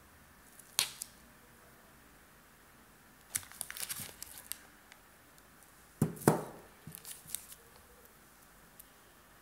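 Clear plastic packaging crinkling in short crackly bursts as the converter and its bagged cable are handled, with a few sharp clicks and one louder knock about six seconds in.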